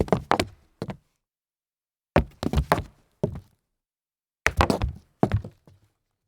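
Feet stumbling on hollow wood: three bursts of several quick, uneven thuds and knocks, the first right at the start, the next about two seconds in and the last about four and a half seconds in, each dying away quickly into silence.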